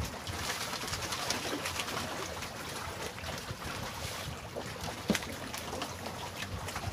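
Wind and small waves slapping around a floating bamboo fishing raft, a steady outdoor wash, with one sharp knock about five seconds in.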